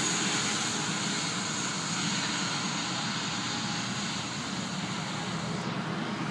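Steady rushing noise inside a vehicle's cabin, with no distinct events; the highest part of the hiss drops away near the end.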